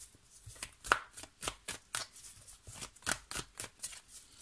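A deck of tarot cards being shuffled by hand, a crisp flick of cards about three times a second.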